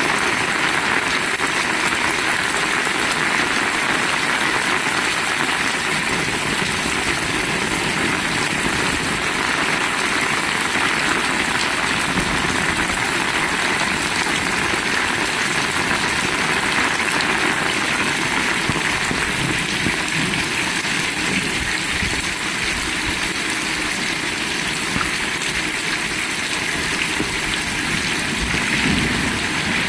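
Heavy rain falling steadily, a dense even hiss that holds at the same loud level throughout.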